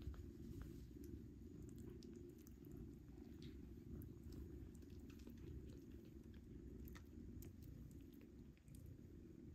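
Cat purring faintly and steadily while the kittens nurse, with scattered soft clicks of suckling and licking.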